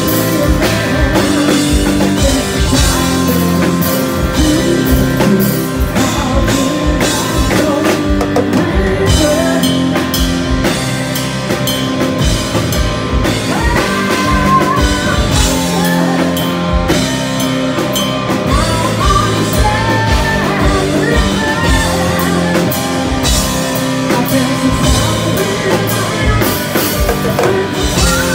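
Live rock band playing loudly: distorted electric guitar and a drum kit, with a male lead vocal singing over them.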